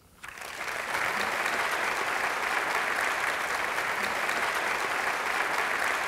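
An audience applauding, the clapping starting right away and quickly swelling to a steady, sustained level.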